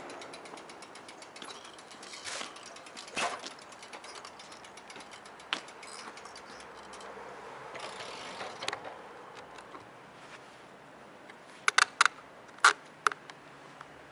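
Bicycle rear-hub freewheel ticking rapidly and evenly while coasting, dying away about halfway through. A few scattered knocks follow, then a cluster of sharp clicks near the end that are the loudest sounds.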